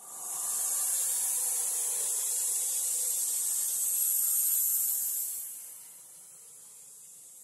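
A steady, high hiss that swells in at the start and fades out about five and a half seconds in, used as a creepy horror sound effect.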